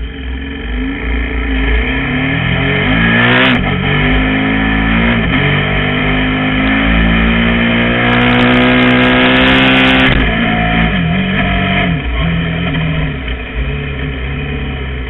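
KTM 990 Super Duke's V-twin engine revving hard under full throttle, its pitch climbing and then dropping at each upshift as the bike pulls away through the gears. It is loudest and highest about eight to ten seconds in, held on the throttle through a wheelie, then drops suddenly and runs lower with a few brief dips as the throttle eases.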